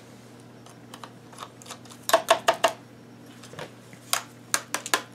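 Light clicks and taps of a small screwdriver working the screws of a plastic portable radio case: about four quick clicks around two seconds in, and another handful near the end.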